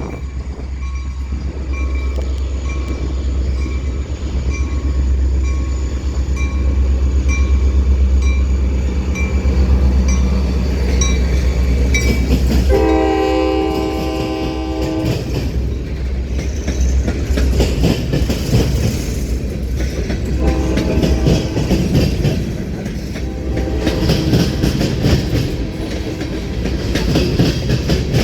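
Freight train passing: a diesel locomotive's deep engine rumble with a bell dinging at a steady beat, then one long horn blast a little under halfway through. Two shorter, quieter horn sounds follow later, while the cars clatter over the rail joints.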